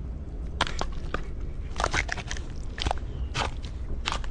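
An alligator's jaws biting down and crunching on food, a run of sharp cracks and crunches spread irregularly over a few seconds.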